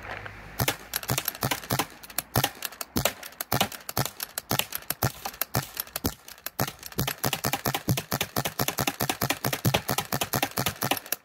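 MacDev Sonic Sniper pump-action paintball gun being pumped and fired in quick succession: a fast, unbroken run of sharp clacks and shots, several a second, starting about half a second in.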